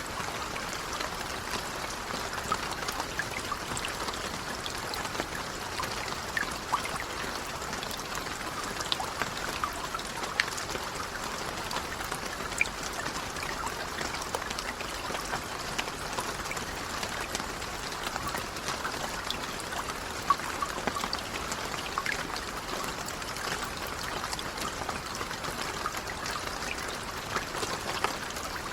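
Light rain falling steadily, a soft patter of many small drops with scattered louder drips.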